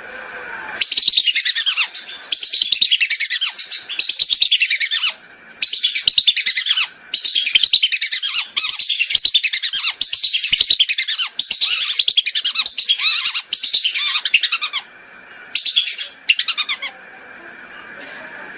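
Whistling ducks (belibis) calling: bouts of rapid, shrill whistles, each note falling in pitch, repeated over and over with brief pauses, ending shortly before the close.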